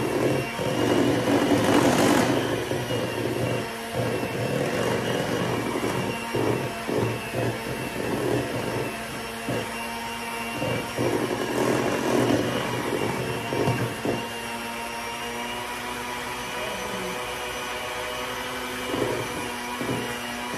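Electric hand mixer running steadily, its beaters whipping butter and powdered-sugar frosting in a stainless steel bowl, with a steady motor whine and irregular knocking of the beaters against the bowl; the knocking thins out in the last few seconds.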